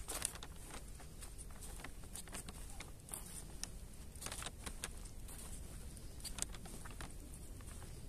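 Footsteps on the forest floor: irregular short crackles and rustles as someone walks, over a low rumble of wind on the microphone.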